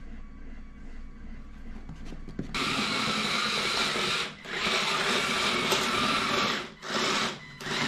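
After a quiet start, about two and a half seconds in, a small 3D-printed RC tracked robot sets off: its small electric drive motors whine and its plastic tracks run. It stops briefly twice near the end.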